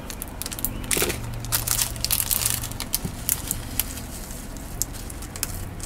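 Small clear plastic bead bag crinkling as it is handled, with small glass Miyuki drop beads trickling out and clicking into a palm. The crinkling and clicking are busiest in the first half and turn to scattered single clicks later.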